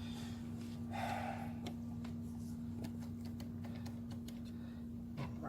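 Steady low hum with faint scattered clicks, and a brief muffled sound about a second in.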